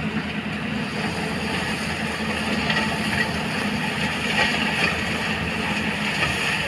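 Excavator's diesel engine running steadily under work, with its hydraulics operating.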